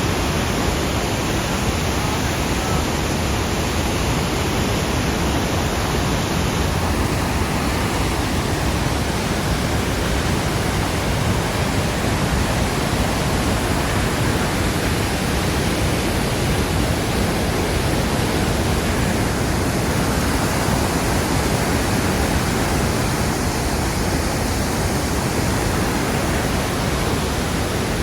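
Waterfall roaring, a loud, steady rush of falling water.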